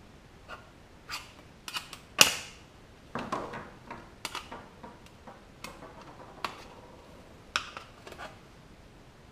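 Irregular small metal clicks and clinks as a thin pointed tool pries and bends the tabs of a sheet-metal car-radio mounting plate, the sharpest about two seconds in.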